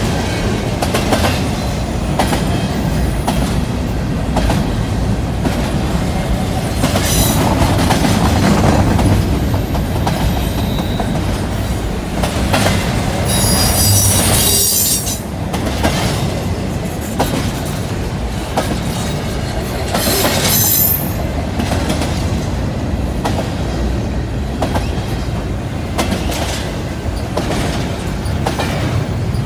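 Double-stack container well cars of a freight train rolling past close by: a steady heavy rumble of steel wheels on rail with rapid clicking as the trucks pass over the rail joints. Three brief high squeals rise over it, the longest and loudest about midway.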